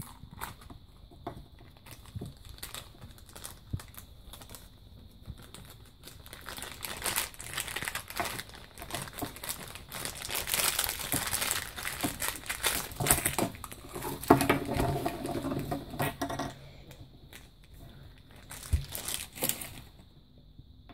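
Thin clear plastic wrapper crinkling and rustling on and off as a small toy figure is pulled out of it and the wrapper is handled, busiest in the middle of the stretch.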